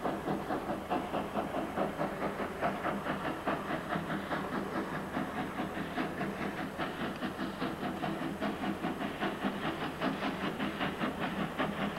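Steam locomotive working toward the microphone, its exhaust chuffing in a steady rhythm of about three beats a second over a hiss of steam.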